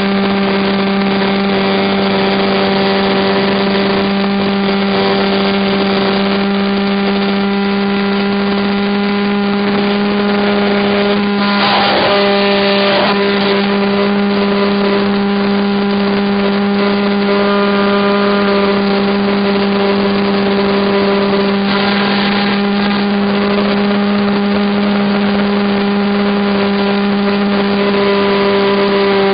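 RC model airplane's motor and propeller running at a steady, unchanging high hum, heard close from on board the plane. Two brief rushes of air noise, about a third of the way in and again past two-thirds.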